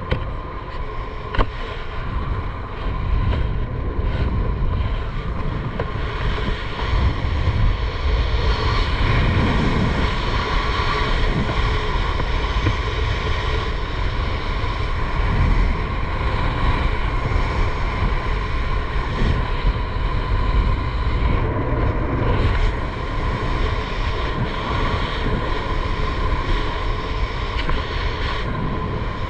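Wind rushing over the camera's microphone during a parachute descent under an open canopy: a steady rush with a faint, even whistle.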